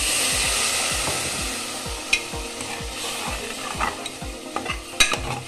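Water poured onto hot fried vegetables and spices in a pressure cooker hisses and sizzles loudly, fading over a second or two. Then a ladle stirs the mix, scraping and knocking against the pot a few times, most sharply near the end.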